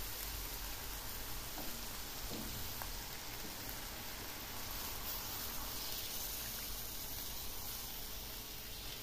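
Pork chops sizzling in a frying pan as water is poured in from a glass container; the sizzle turns hissier for a couple of seconds past the middle.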